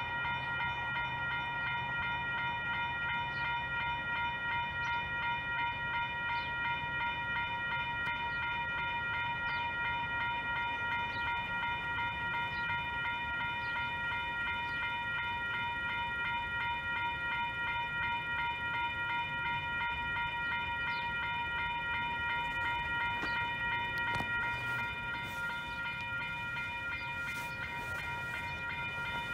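Railroad grade-crossing warning bell ringing rapidly and steadily while the crossing signals are active; it gets a little quieter near the end.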